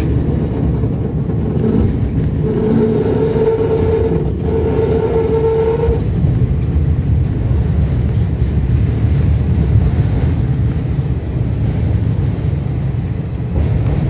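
A KiHa 52 diesel railcar under way, heard from inside the cabin: the steady low rumble of its diesel engines and its wheels on the rails. From about two to six seconds in, a steady high tone rides over the rumble, broken briefly near the middle.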